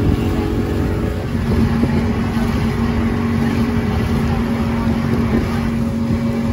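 A small boat's outboard motor running steadily while cruising, a constant low hum over the rush of water and wind.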